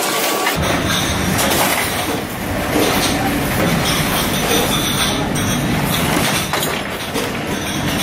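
Commercial dish-room machinery running steadily, a tray conveyor and dishwashing machine, with occasional clatters of dishes or trays.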